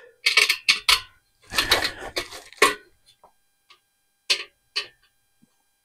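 Metal grill-stand legs and braces clacking and clicking as they are slid and fitted together: a few quick rattling clusters over the first three seconds, then two single clicks.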